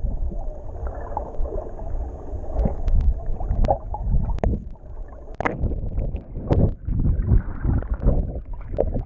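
Muffled underwater sound picked up by an action camera held under shallow sea water: a low rumble and churn of moving water with scattered sharp clicks and knocks. The higher sounds are cut off.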